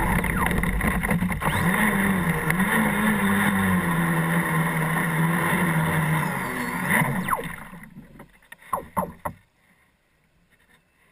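Electric RC speed boat running at speed: a steady motor whine with wavering pitch over rushing water and spray. About seven and a half seconds in the motor winds down and the boat coasts to a stop. A few sharp water slaps against the hull follow, then near quiet.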